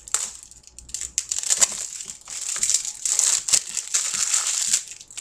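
Plastic shrink-wrap crinkling and crackling as it is peeled off a Blu-ray case, louder and busier from about two seconds in.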